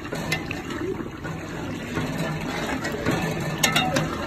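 A perforated metal spoon stirring chicken in thin gravy in a large metal pot: wet sloshing and scraping, with sharp clinks of the spoon against the pot about a third of a second in and again near the end.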